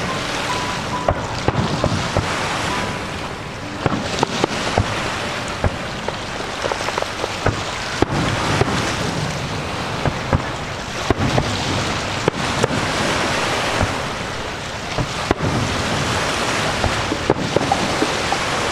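Fireworks shells bursting with many sharp bangs and crackles at irregular spacing, over a steady rushing noise.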